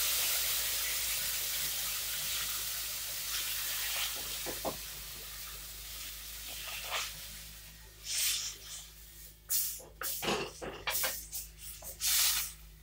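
Hot oil-fried flour and raisins sizzling and hissing as water is poured into the pan, the hiss slowly dying away over several seconds. After that, a wooden spatula stirs and scrapes in the pan in short, irregular strokes.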